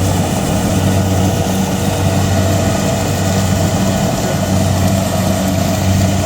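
An engine running steadily at a constant speed, with a deep even hum.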